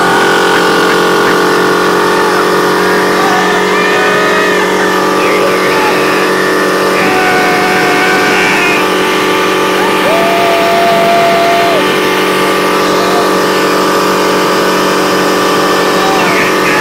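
Nautique 200 ski boat's inboard engine running at high, steady revs with the boat at speed (around 45 mph), heard close up over the engine cover. The pitch holds level throughout.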